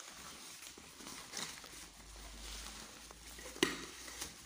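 Fabric of a drawstring storage bag rustling as a camping cooking pot is worked out of it by hand, with small clicks of handling and one sharp knock about three and a half seconds in.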